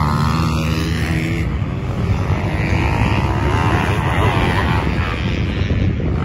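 Motocross dirt bike engines running on the track. There is a steady engine tone for the first second or so, then revs rising and falling as the bikes ride the circuit.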